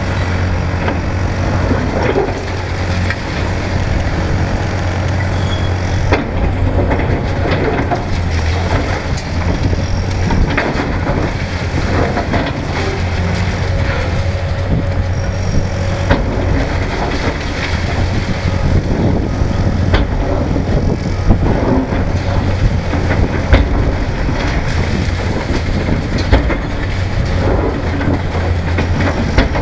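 Hitachi 450LC excavator's diesel engine running steadily while its demolition attachment tears into a brick wall. Crunching brick and concrete and clattering falling debris come with scattered sharp knocks throughout.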